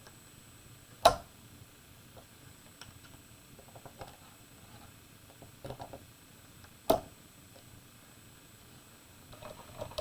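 Two sharp clacks about six seconds apart from a small magnet rig, as the polarity of an electromagnet is switched and the permanent magnet beside it is moved. Faint ticks and handling noise come between them.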